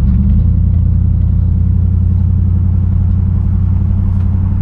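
Pickup truck's engine through a newly fitted budget cat-back exhaust with new mid-pipes and catalytic converters, heard from inside the cab while driving: a steady, even low hum with no revving.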